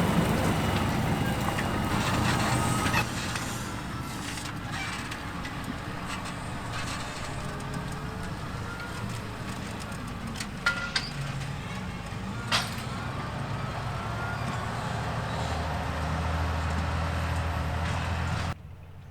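Fendt 936 tractor's six-cylinder diesel engine running steadily under load pulling an eight-furrow plough, growing quieter about three seconds in as it moves off. A few sharp clicks come near the middle, and the sound drops abruptly just before the end.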